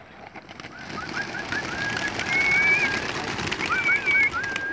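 A flock of racing pigeons released at once from opened baskets: a dense rush of flapping wings that builds about half a second in and keeps up. Short rising whistle-like notes sound repeatedly over it.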